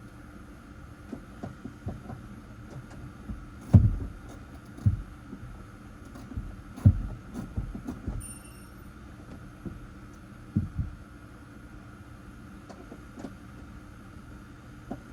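A series of dull thumps and knocks, irregularly spaced, the loudest about four and seven seconds in, over a steady faint hum. A brief high tone sounds near eight seconds in.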